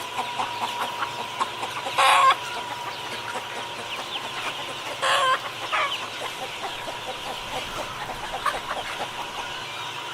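Chickens clucking, many short calls overlapping, with two louder, longer calls about two and five seconds in.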